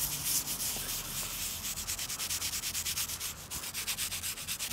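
Small wire brush scrubbing the edge of a terracotta tile in quick back-and-forth strokes, a rapid scratchy rasp several strokes a second, briefly pausing about three and a half seconds in. It is scouring off acid-loosened calcium, lime and efflorescence deposits.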